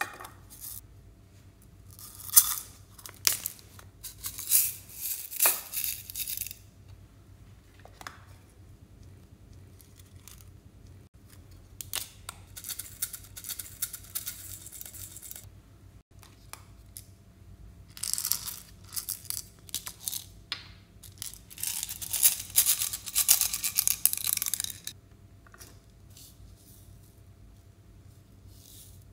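Crackling, gritty scraping as glitter-covered decorative shapes are rubbed and crumbled by hand over glass trays, with small confetti pieces clicking onto the glass. It comes in three bursts of several seconds each.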